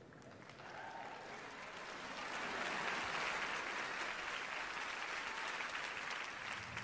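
Theatre audience applauding, swelling over the first two or three seconds and then holding steady.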